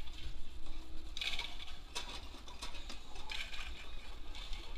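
Summer toboggan sleds rattling and clacking in their metal track trough as they move off, with mechanical ratchet-like clicks coming in short rattles about a second apart.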